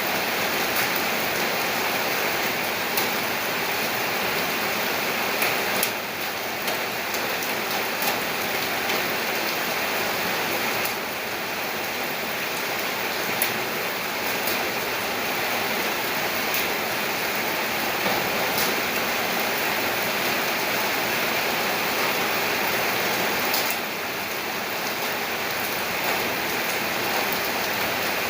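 Steady rain falling: an even hiss of water, with scattered sharper ticks of single drops.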